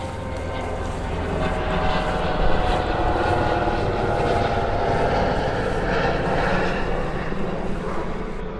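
Airplane passing overhead: a steady engine drone that grows louder, is loudest in the middle, then fades.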